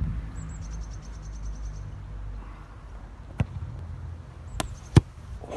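A football being kicked: three short sharp thuds in the second half, the last the loudest, over a low steady rumble.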